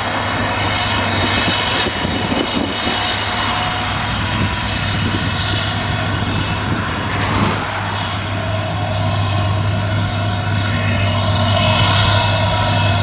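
Claas Jaguar 850 self-propelled forage harvester working, chopping grass from a windrow and blowing it through its spout into a trailer. A steady, loud machine drone with a constant deep hum, with the engine of the tractor running alongside.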